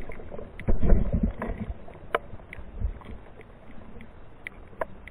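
Water disturbance and low thumps as a released black crappie goes back down an ice-fishing hole, picked up by an underwater camera. The loudest thumps come about a second in, followed by a few faint clicks.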